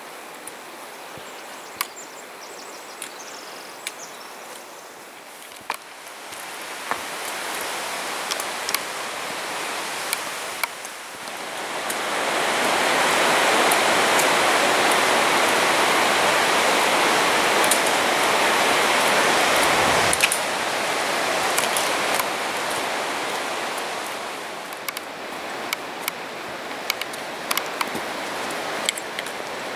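Rushing whitewater of Elliot Creek, a steady hiss of water that swells up about a third of the way in, stays loud for several seconds and fades again after about two-thirds. Scattered sharp clicks of footsteps on the trail run through it.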